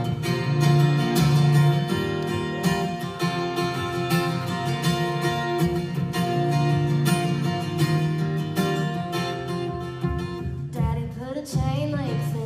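Acoustic guitar strummed in a steady rhythm as a song's intro. About two seconds before the end, the strumming drops away and a singer's voice comes in.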